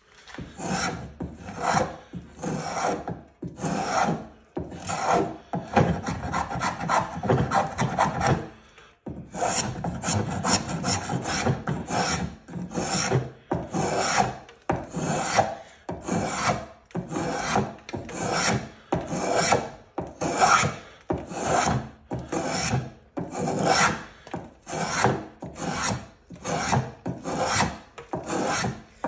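Spokeshave cutting a chamfer along the edge of a wooden seat, each push a short rasping stroke that takes off a shaving. The strokes come one after another in a quick, even rhythm, with a run of closely packed strokes a few seconds in.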